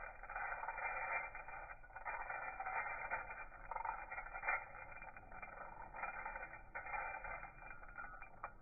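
Ball bearing on an Evinrude E-TEC 90 outboard's bare crankshaft spun by hand: a thin rolling whir that rises and falls as it is spun again, with faint ticks, tested to see how freely it turns because a faulty crankshaft bearing is suspected of causing the engine's vibration.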